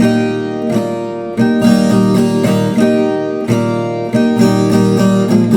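Viola caipira playing strummed chords on its own, a fresh strum about every second.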